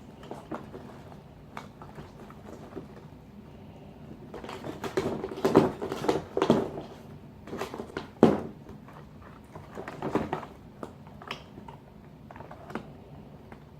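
A cat moving about inside a birthday gift bag, the bag rustling and scraping in irregular bursts, loudest through the middle, with quieter scuffling before and after.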